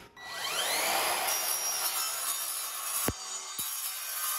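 Evolution R185CMS-Li 18 V cordless sliding mitre saw spinning up with a rising whine, then its multipurpose blade cutting through metal with a steady high-pitched hiss. Two short knocks come about three seconds in.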